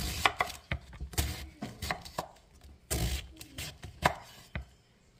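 Chef's knife slicing through a head of cabbage and striking a wooden cutting board in an uneven run of cuts.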